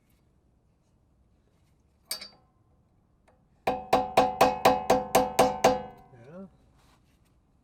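Hammer tapping a flathead screwdriver to chisel off a rear wheel hub's dust cap, metal on metal: one sharp strike, then a quick run of about nine ringing taps at about four a second, ending in a short wavering ring.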